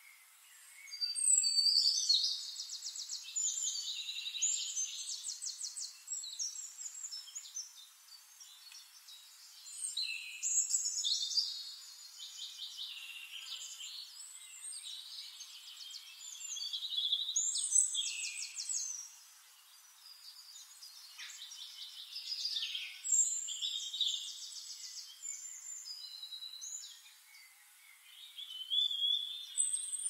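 Songbirds singing high, fast trills and chirps in bouts that come every five or six seconds, with quieter chirping between them.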